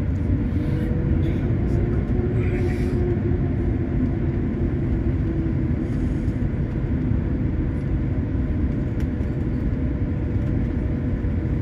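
Jet airliner cabin noise while taxiing: a steady low rumble with a faint, steady whine over it.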